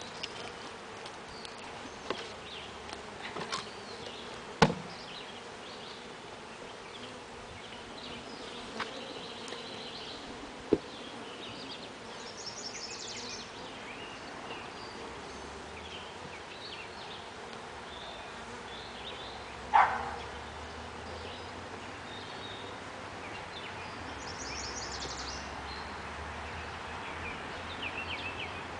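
Honeybees buzzing steadily around an open hive, with a few sharp knocks, the loudest about two-thirds of the way through, as the wooden hive lid and top cover are set back in place.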